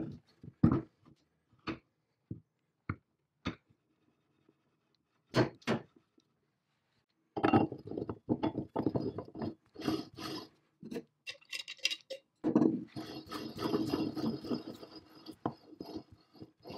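Cast-iron and steel parts of a swing saw's arbor assembly being fitted together by hand: a few separate metal clinks and knocks, then two long stretches of metal rattling and scraping as the threaded shaft and handwheel go into the housing.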